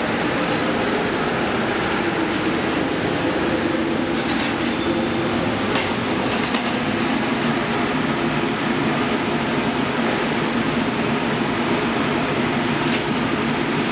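Shrink-wrapping machine running steadily: a constant mechanical drone with a few faint clicks.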